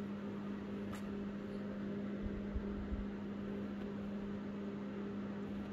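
A steady low hum over a faint hiss of room noise, with a few soft low thumps about two to three seconds in.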